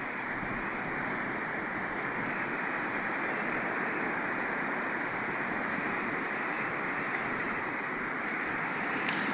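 Steady rushing noise of breaking surf and strong wind on an ocean beach.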